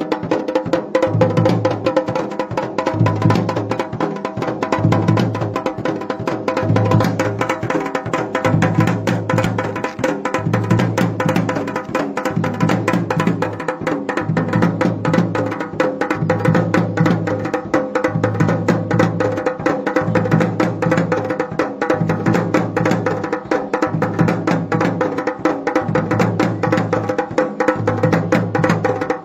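Dhol and damau, the Garhwali folk drums, played together in a fast, driving rhythm: rapid strokes over deep beats that come about once a second.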